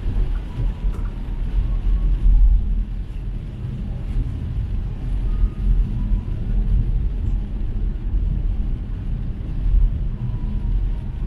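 A car driving, heard as a steady low rumble of road and engine noise.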